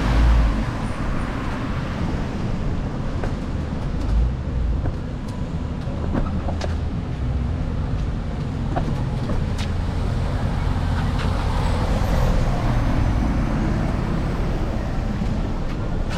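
Street traffic: a steady low rumble of passing vehicles, with a few short, sharp clicks.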